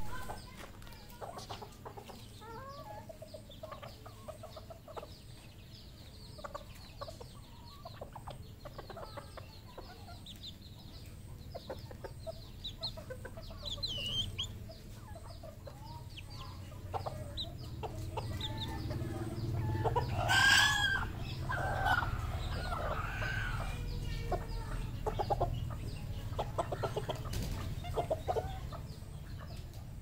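Red junglefowl clucking and calling, with short calls throughout and the loudest calls about twenty seconds in.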